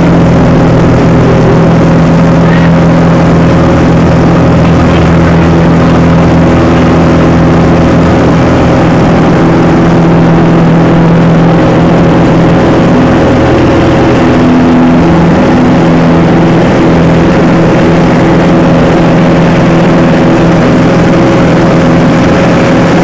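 Single-engine propeller plane's engine running steadily at high power during take-off and climb, heard loud from inside the cabin with a rush of wind noise.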